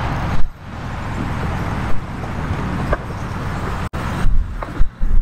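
Wind buffeting an outdoor microphone: a steady rushing noise, heavy in the lows, with stronger gusty thumps near the end.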